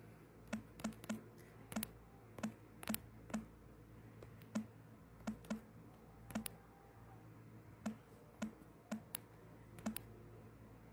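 Fingertips tapping on a phone's touchscreen keyboard while typing: faint, irregular taps, about two a second with short pauses, each a small click with a soft thud.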